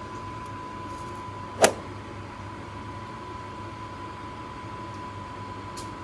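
Pot of water at a rolling boil on an electric coil stove with dry fettuccine sinking into it: a steady bubbling noise with a low hum and a thin steady high tone, and one sharp knock about a second and a half in.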